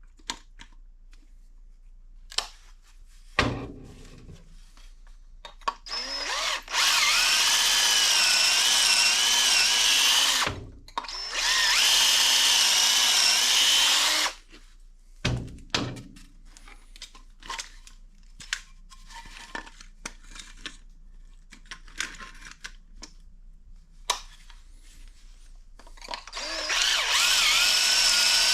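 Power drill running in three long bursts of several seconds each, its whine wavering in pitch under load, with knocks and clicks of handling in between.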